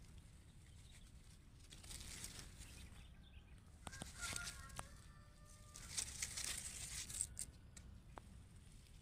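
Eggplant leaves and stems rustling and brushing against the hand-held camera as it pushes through the plants, in two bursts of about a second each. Between them comes a short, faint pitched call.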